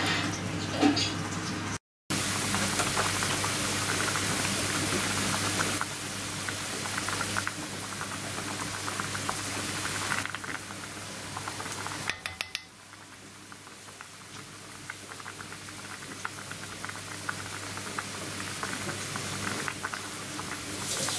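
Food bubbling and crackling as it cooks on the stove, a dense patter of small pops over a steady low appliance hum. It cuts out briefly about two seconds in and turns quieter about twelve seconds in.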